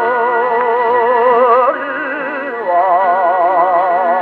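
Tenor voice with orchestra singing long held notes with a wide vibrato, moving to a new note twice, played from a 1932 78 rpm shellac record on an EMG Mark Xb acoustic gramophone with a thorn needle. The sound is mellow and narrow, with little treble.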